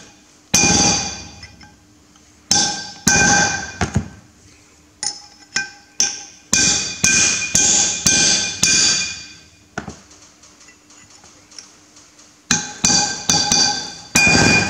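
Hammer blows on a cold chisel driven into the steel locking collar of a Massey Ferguson 135 rear axle bearing, to split the drilled collar off the half shaft. The blows come in quick groups of two to five with short pauses between, and each strike rings with a clear metallic tone.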